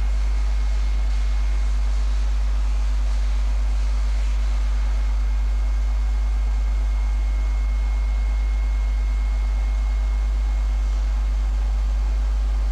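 Favretto MC 2T 400 CNC grinding machine running, a steady deep hum with even machine noise over it. A faint high whine comes in about a second in and grows stronger in the middle before fading near the end.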